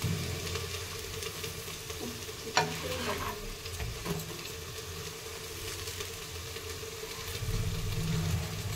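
Oiled khoya-stuffed roti sizzling on a hot tawa as a steel spoon presses and turns it, with one light tap of the spoon about two and a half seconds in.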